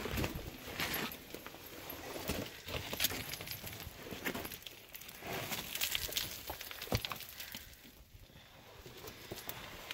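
Footsteps crunching and scraping over loose rock, with stones clinking and knocking together underfoot at an irregular pace.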